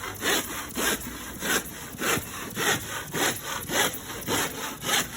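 Handsaw cutting wood in steady back-and-forth strokes, a little under two a second, finishing a cut begun with a circular saw.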